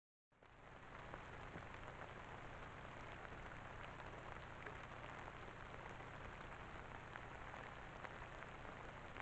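Steady hiss from a trail camera's microphone, with faint irregular ticks and crackles throughout.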